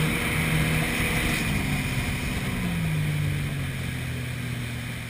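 The 300 HP MerCruiser V8 inboard engine of a Mastercraft 190 ski boat running under power over the rush of its wake and spray. The engine note drops in two steps, about a second and a half in and again near the three-second mark, as the boat comes off the throttle.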